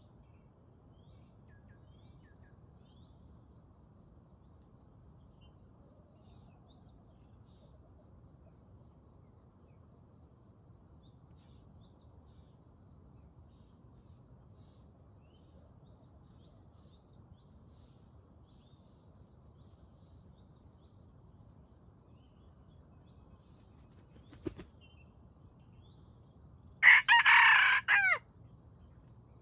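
A rooster crowing once, loud and about a second and a half long, near the end. Before it there is a faint, steady insect trill and a single sharp click.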